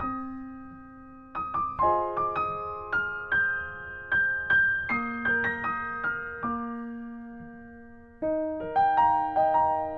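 Solo piano background music: a gentle melody of struck notes and chords that ring and fade. It thins to one held low note in the second half, then picks up again near the end.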